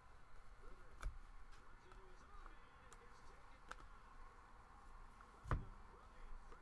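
Quiet handling of a stack of trading cards: faint clicks as the cards are shuffled from hand to hand, about a second in and again near four seconds, and one louder dull thump about five and a half seconds in.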